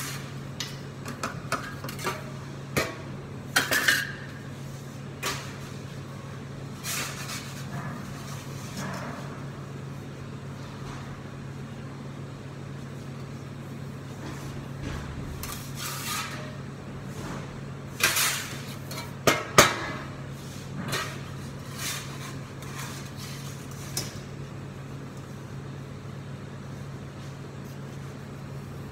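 Perforated metal pizza peel knocking and scraping against a marble counter and the oven floor as pizzas are slid on and off it: scattered clacks and a few longer scrapes, the loudest a few seconds in and about two-thirds through, over a steady low hum.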